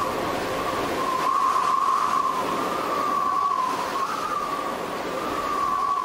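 Small quadcopter drone's propellers whining as it flies, a steady high hum whose pitch drifts slightly up and down.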